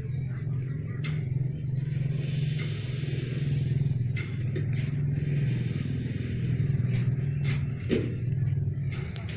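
A motor running steadily with a low hum, with a scraping hiss from about two to seven seconds in and a few light clicks.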